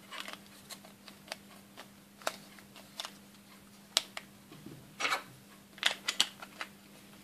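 Small hard plastic parts of a Playmobil figure clicking and tapping together as its two-piece plastic skirt is fitted on by hand: scattered light clicks, with a few bunched together about five to six and a half seconds in.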